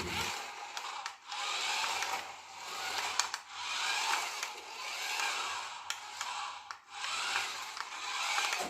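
Small electric motor and gears of a toy remote-control car whirring in repeated bursts, swelling and fading about every two seconds, with a few clicks.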